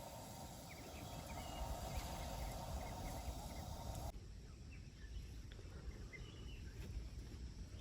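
Faint birds chirping over a low wind rumble. A steady hiss cuts out suddenly about four seconds in.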